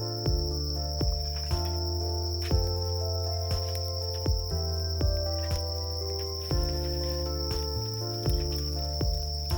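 Background music of sustained low notes, struck and changing about twice a second, over a steady high insect trill, typical of crickets at night.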